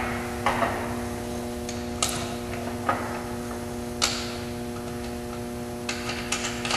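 Scattered sharp clicks and taps from hand work on the Jeep's bumper and wiring: single ticks every second or so, then a quicker run of clicks near the end, over a steady hum.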